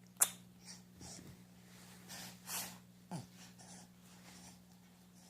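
Baby making pig-like sounds: a few short, noisy nasal breaths and a brief grunt that falls in pitch about three seconds in. A sharp click comes just after the start, and a steady low hum runs underneath.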